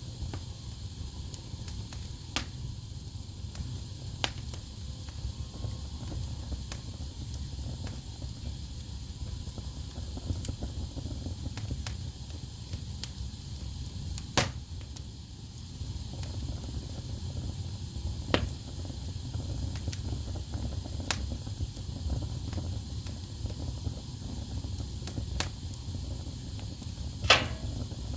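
Wood fire burning in a fireplace: a steady low rumble of flames with occasional sharp pops and snaps from the logs, the loudest snap near the end.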